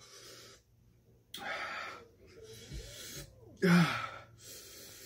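A man breathing hard through his mouth against the burn of chilli heat: a series of sharp, breathy gasps in and out with short gaps between them. The loudest is a short voiced gasp about three-quarters of the way through.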